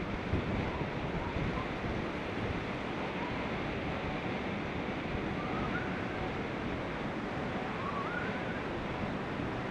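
Steady wind rushing over the microphone of a bicycle riding downhill at speed.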